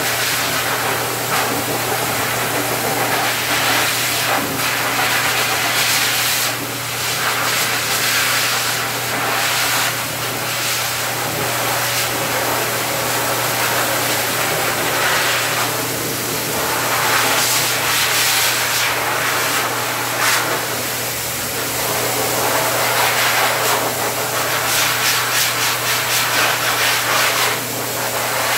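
High-velocity pet dryer blowing through its hose and nozzle: a loud, steady rushing hiss over a low motor hum, swelling and easing every few seconds as the nozzle is moved over the dog's curly coat.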